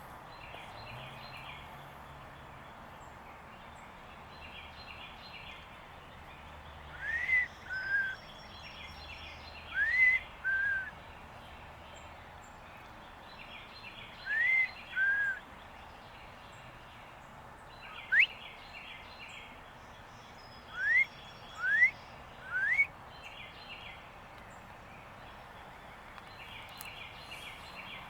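A series of clear whistles over a steady outdoor background. Three times a rising note is followed by a short lower, arched note, then four single rising whistles come close together. Soft repeated trills sit faintly behind them.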